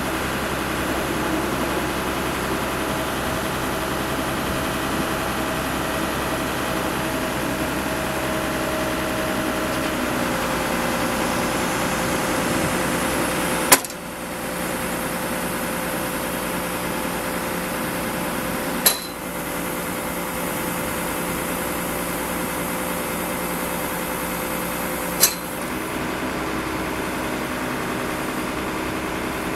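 1999 HMF 1063 K3 truck-mounted knuckle-boom crane's hydraulic drive (engine and pump) running steadily as the boom unfolds and extends, its whine dropping slightly in pitch about ten seconds in. Three sharp clacks cut through it, about 14, 19 and 25 seconds in.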